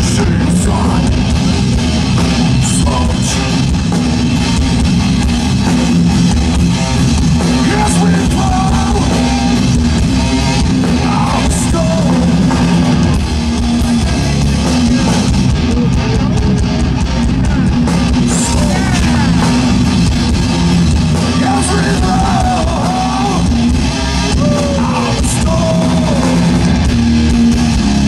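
Heavy metal band playing live: distorted electric guitars, electric bass and a drum kit playing a heavy, steady riff, with a man singing over it at times.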